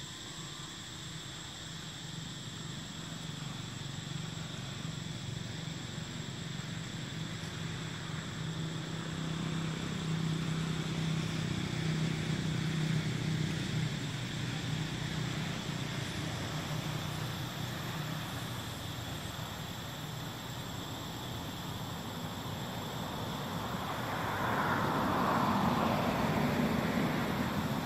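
Motor vehicles passing: a low engine hum swells about ten seconds in and fades, and a louder pass comes near the end. A steady high insect drone runs underneath.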